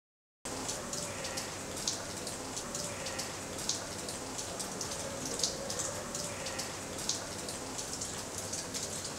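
Many drips of coloured citric-acid solution falling from hanging infusion bags onto limestone blocks and into shallow puddles: an irregular patter of small ticks over a steady hiss. The sound starts abruptly about half a second in.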